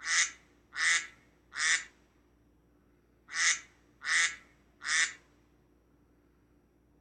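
Duck quacking: two runs of three short, raspy quacks with a pause between the runs.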